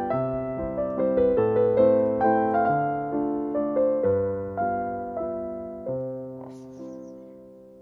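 Background piano music: a slow, gentle melody of notes and chords that strike and ring away, the phrase fading out near the end.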